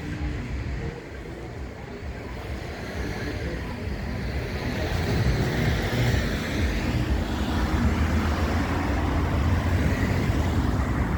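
City street traffic: cars running past, with one vehicle coming closer and getting louder over the first half, then steady passing traffic.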